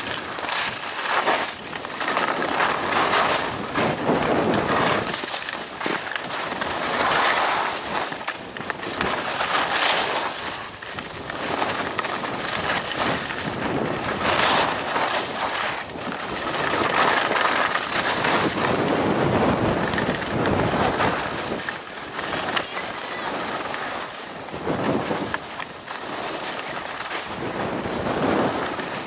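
Skis scraping and carving across snow through a series of turns, each turn a swell of hiss, with wind buffeting the microphone.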